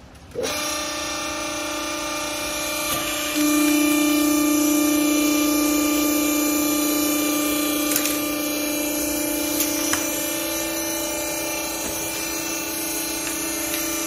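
Small hydraulic used-clothes baler's electric motor and hydraulic pump running with a steady hum. It starts about half a second in and gets louder about three and a half seconds in, while the ram lifts the press plate off the strapped bale.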